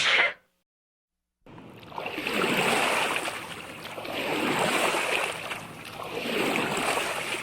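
A rushing, surf-like noise that comes in about a second and a half in and swells and fades three times.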